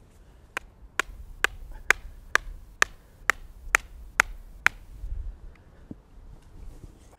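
A wooden stake being driven into the ground with about ten evenly paced blows, about two a second, which stop nearly five seconds in.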